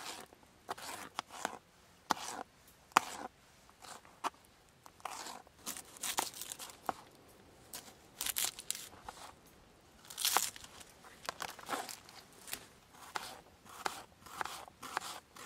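Kitchen knife cutting through red pepper and red onion on a thin plastic chopping board: irregular crunchy cuts and sharp knocks of the blade on the board, with short pauses between strokes.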